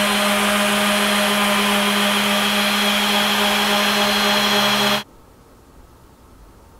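Festool ETS 125 random orbital sander running steadily as it sands the face of a wooden raised-panel door, a constant motor hum over a hissing scrub of the pad on the wood. It cuts off abruptly about five seconds in, leaving faint room tone.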